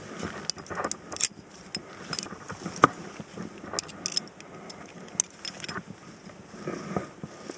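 Metal climbing gear, carabiners and hardware, clinking and jangling in irregular sharp clicks, the loudest a little under three seconds in.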